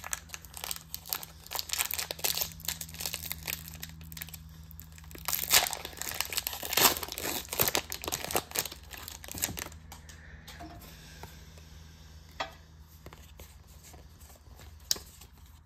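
Foil wrapper of a Pokémon trading card booster pack being torn open and crinkled, a dense crackling for the first ten seconds or so, then quieter, sparser rustles and clicks as the cards are handled.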